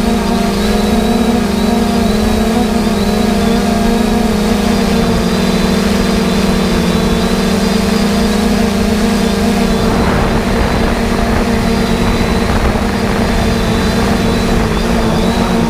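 Heavy diesel engine of harvest machinery running steadily under load at a constant pitch, with a rougher rushing noise joining about ten seconds in.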